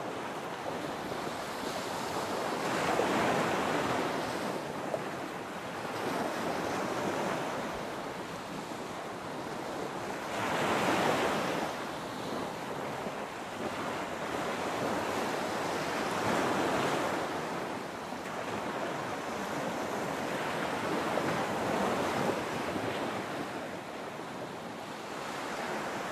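Ocean surf: waves breaking and washing back, the rush swelling and falling away about every four to five seconds.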